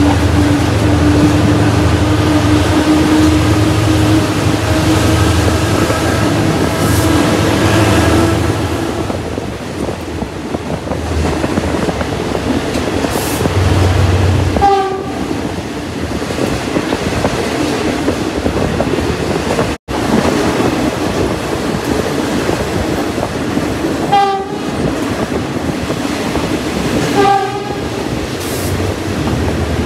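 A passenger train running on the rails, heard from on board. Over the first several seconds there is a steady engine drone with a held tone, then the running continues with short horn blasts about 15, 24 and 27 seconds in.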